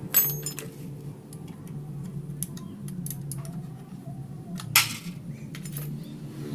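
Metal tools and engine parts clinking and knocking against each other during motorcycle engine cylinder head disassembly. There is a sharp ringing clink just after the start, a louder knock near the end, and several lighter ticks between, over a steady low hum.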